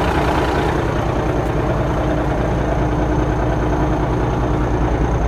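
1986 Samsung SD20 bulldozer's diesel engine running steadily, heard from beside the operator's seat.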